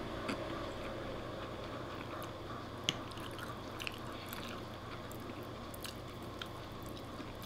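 A man chewing a mouthful of creamy spaghetti, with wet mouth sounds and scattered small clicks, while a metal fork twirls more pasta on a wooden plate.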